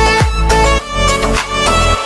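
Background music with a kick-drum beat under sustained melodic notes.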